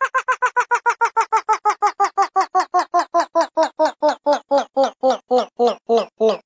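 A sound effect of short pitched blips repeating fast, slowing steadily from about nine a second to about four and falling in pitch as it goes, like a winding-down effect.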